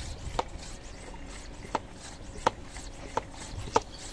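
Hand-pump pressure sprayer being pumped up to build air pressure in its tank, with five short plastic clicks from the pump strokes.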